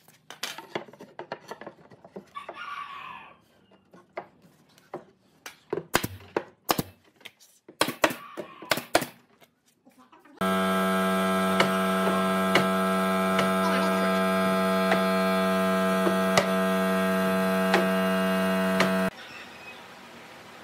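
Scattered light knocks and clicks of pine boards being handled and fitted. About ten seconds in, a loud, steady, low electrical hum starts suddenly, runs for about nine seconds and cuts off.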